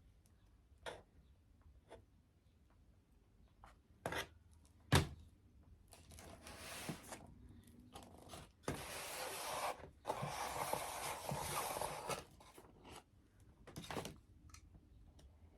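Foam board pieces being handled and pressed together while hot-gluing: a few sharp knocks, the loudest about five seconds in, and stretches of rubbing and scraping in the middle.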